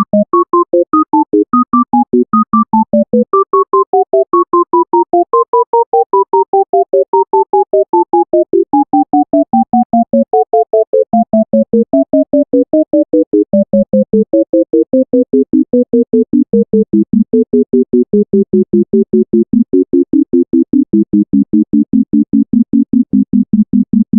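Sonified heapsort: a rapid, even stream of short synthesized beeps, about five a second, each pitch standing for a value the algorithm is comparing or swapping, often two notes at once. The higher notes fall slowly in pitch as the sort goes on and the largest values are pulled off the heap.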